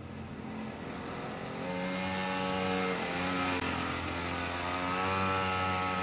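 A vehicle engine running steadily, fading in at first, its pitch drifting slightly up and down.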